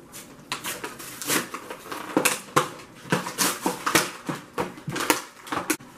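Crinkly plastic toy packaging crackling and rustling as it is pulled and torn open by hand, in a quick string of sharp crackles.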